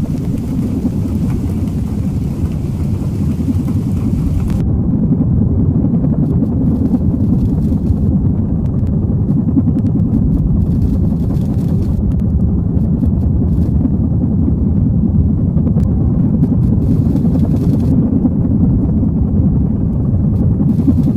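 Steady, loud low rumbling drone. A high hiss over it cuts off suddenly about four and a half seconds in.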